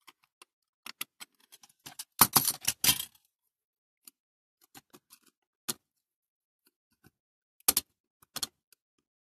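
Small metal clicks and rattles of hand tools working on a die-cast toy's parts as a tight part is prised loose. A quick run of louder clicks comes about two to three seconds in, then scattered single ticks, and a few more clicks near the end.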